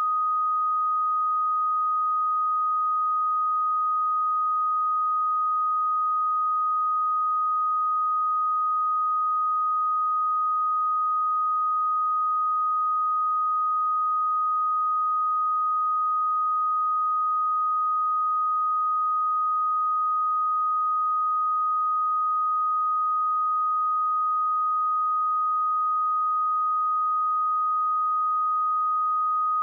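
A pure 1248 Hz sine-wave test tone, one steady unchanging pitch at a constant level.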